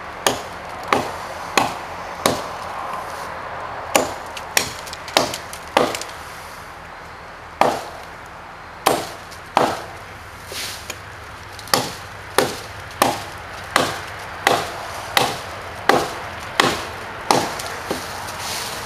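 Gränsfors Bruks Hunter's Axe chopping into a hard log: a steady run of sharp, woody chops, about one every two-thirds of a second, with a short pause about six seconds in.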